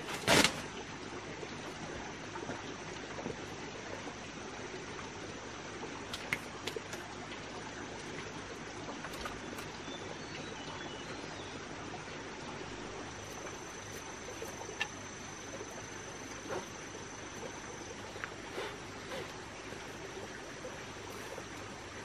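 Steady rainforest background hiss with a sharp knock just after the start, then scattered light clicks and taps. A thin, high, steady tone joins a little past halfway.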